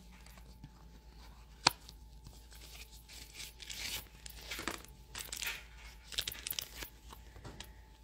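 A single sharp click a little under two seconds in, then soft, irregular rustling and scraping.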